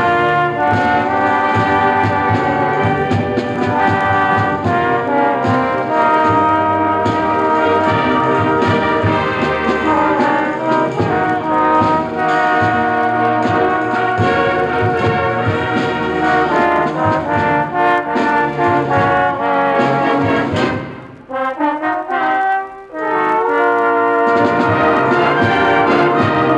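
High school band playing, with brass to the fore. Near the end the band briefly drops away to a few soft notes, then comes back in at full strength.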